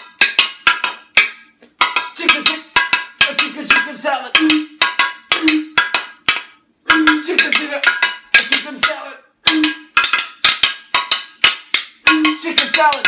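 A rhythmic percussion beat of sharp, ringing clicks, several a second, with a short low note coming back about once a second.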